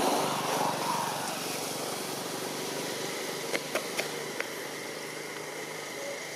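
A small engine running steadily in the background, with four sharp clicks a little past the middle.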